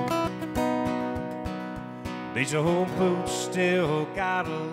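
Acoustic guitar being played over a steady low beat. About halfway through, a voice begins singing a sliding melody over it.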